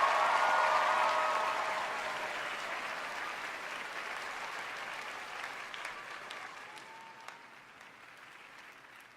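Studio audience applauding, with cheers in the first couple of seconds, the applause dying down gradually to a few scattered claps.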